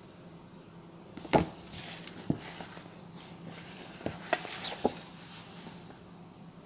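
Stiff glossy paper pamphlet being handled and turned over: paper rustling with several sharp clicks and taps, the loudest about a second and a half in, the last about five seconds in.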